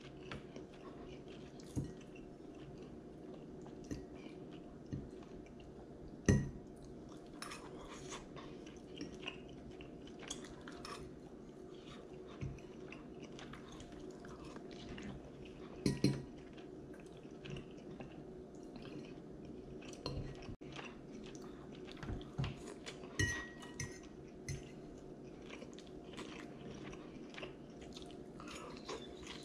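Metal fork clinking and scraping on a plate at scattered moments while a man eats, with quiet chewing between the clinks. A faint steady hum runs underneath.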